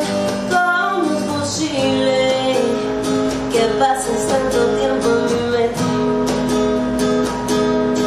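Acoustic guitar strummed in a steady rhythm, with a woman singing over it.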